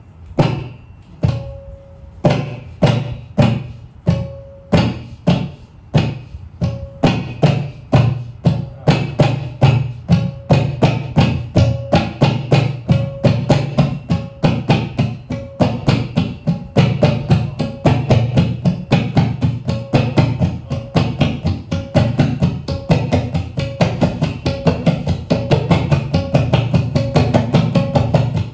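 Tabla played to imitate a train engine pulling away: separate strokes that quicken steadily into a fast, even rhythm, with a ringing pitched stroke on the treble drum coming back again and again.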